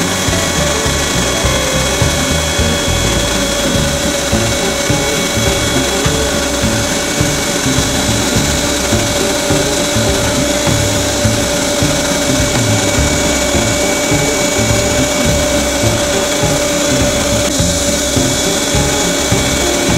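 Unold 8810 electric meat grinder motor running steadily with a constant whine, pushing sausage filling through the stuffing tube into the casing.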